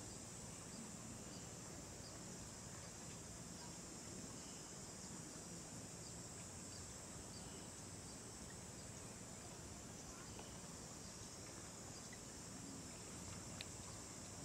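Steady, high-pitched chorus of insects buzzing, with a few faint clicks near the end.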